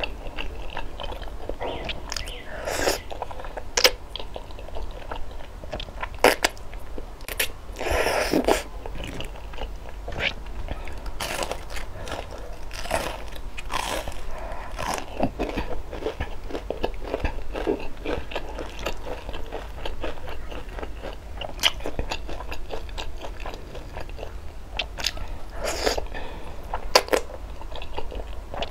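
Close-miked eating: sharp crunching bites of fried, breaded food and chewing, with a few longer wet slurps of saucy instant noodles.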